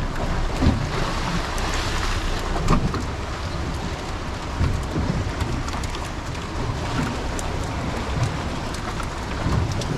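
Steady rushing wash of choppy sea and breaking surf around a small boat, with wind rumbling on the microphone.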